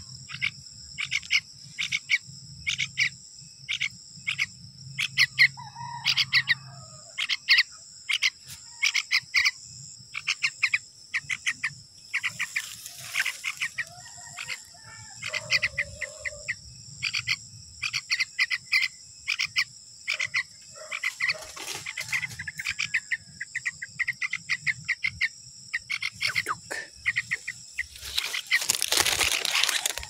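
Short, sharp animal calls in quick irregular series, several a second, over a steady high-pitched drone; a broad rush of noise comes near the end.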